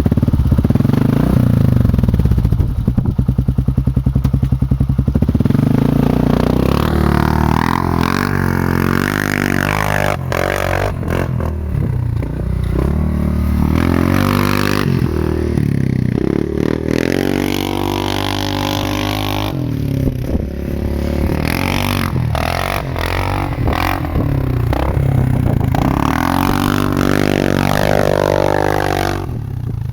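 2003 Yamaha Grizzly 660 ATV's single-cylinder four-stroke engine breathing through an HMF slip-on exhaust: it runs steadily for the first few seconds, then revs up and eases off again and again. There are a few knocks and rattles in the middle.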